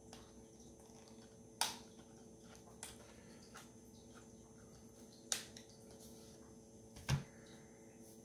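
Faint handling of coin packaging: four separate sharp clicks or taps, the loudest, about seven seconds in, with a dull knock under it, over a faint steady hum.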